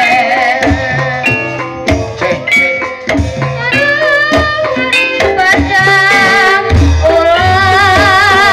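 Javanese gamelan music accompanying an ebeg horse trance dance: hand drums and struck metal percussion under a wavering melodic line that grows stronger in the last few seconds.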